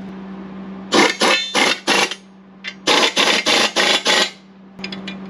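Impact wrench run in short trigger bursts on a rear axle's pinion nut, two runs of four or five quick buzzing bursts, tightening the nut against the crush sleeve.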